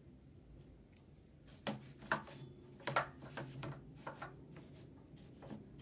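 Light, irregular clicks and scrapes of metal sewing-machine parts being handled around the bobbin area, with a few quick taps close together in the middle.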